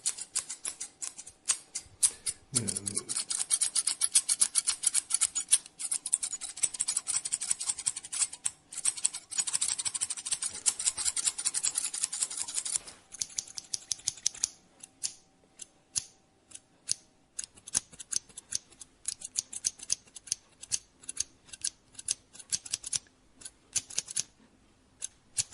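Barber's scissors snipping through hair, rapid and continuous for about the first half, then slower, spaced-out snips.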